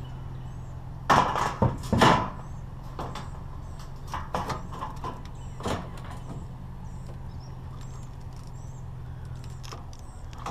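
Long pieces of scrap metal clanking against a pickup truck bed as they are handled and loaded: a few loud clanks about a second in, then lighter knocks and rattles until about halfway through.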